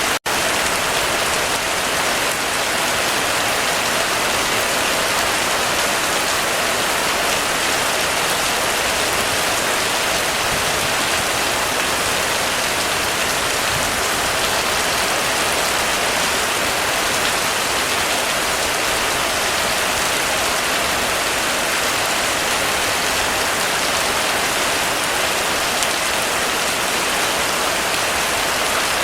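Steady heavy rain drumming on a roof, a dense even hiss of drops. It cuts out for an instant just after the start.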